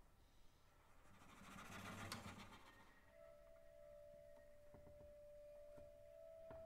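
Very soft contemporary chamber music for flute, violin and cello. A breathy, airy swell with a low flutter rises and fades, and about three seconds in a single quiet high note enters and is held steadily, with a few faint clicks.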